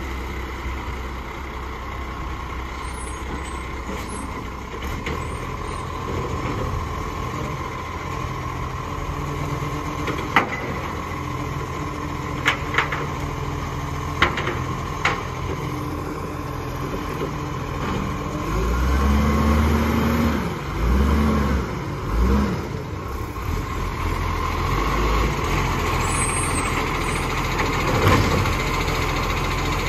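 Iveco side-loader garbage truck's diesel engine running at low speed as the truck manoeuvres, with a few short sharp clicks in the middle. About two-thirds of the way through the engine revs up in several short swells as the truck pulls toward the bins.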